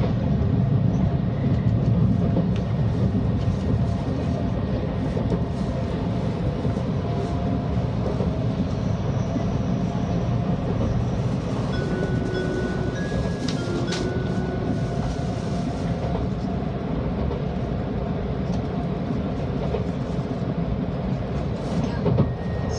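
Cabin running noise of an N700A Shinkansen train under way shortly after departure: a steady low rumble with faint whining tones above it, and a single sharp click about fourteen seconds in.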